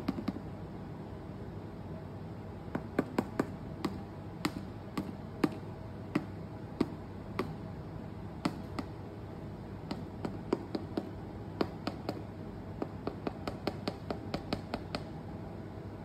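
Freshly poured polyurethane foam crackling as it rises and cures: scattered sharp clicks and pops, some in quick little runs, over a steady low background hum.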